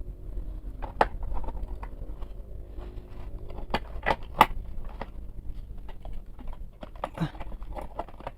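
Metal bike tools being handled in their case: scattered light clicks and clinks, a few seconds apart, over a faint low hum.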